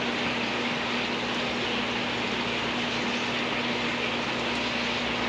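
Steady hiss of air-stone bubbling and water running in aquarium tanks, with a steady low hum underneath.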